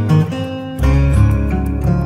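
Background music with plucked strings; a deep bass note comes in just under a second in.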